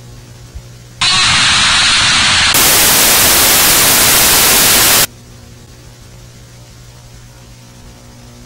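Loud burst of TV static hiss, starting about a second in, turning brighter and fuller about a second and a half later, then cutting off abruptly after about four seconds. A low, steady electrical hum runs underneath.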